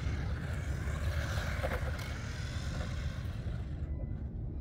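Small electric RC toy car running on concrete, its motor whirring and tyres hissing as it drives away, cutting out near the end. A steady low rumble runs underneath.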